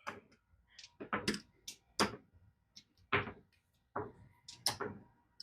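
Casino chips being stacked and pushed on a craps table: a series of irregular sharp clicks and clacks, some with a duller thunk, as a bet is raised.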